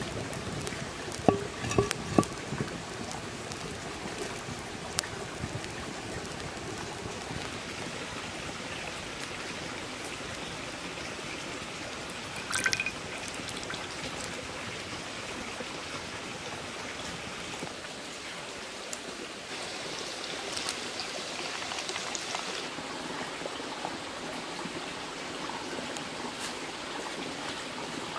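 Wood fire crackling under a clay cooking pot, with a few sharp crackles about a second in, over a steady trickling, water-like rush. A short louder sound about halfway through.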